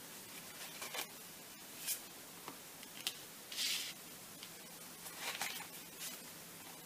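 Tarot or Lenormand cards being handled: a handful of short, soft swishes as cards slide and are laid out, about five over several seconds.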